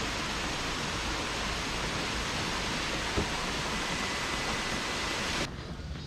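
Heavy rain pouring steadily, a dense even hiss. It stops abruptly about five and a half seconds in, leaving a much quieter background.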